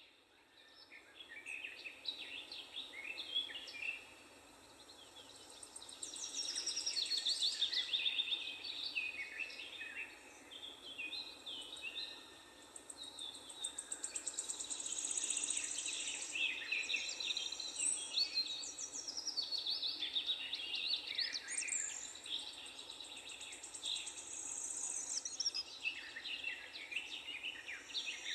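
Several songbirds singing and calling at once, overlapping chirps, whistles and rapid trills, over a steady low background hiss.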